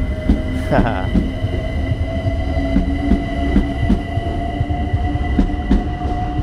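London Overground Class 378 electric train pulling out past the platform. Its traction motors give a steady whine that slowly rises in pitch, and its wheels click repeatedly over the rail joints.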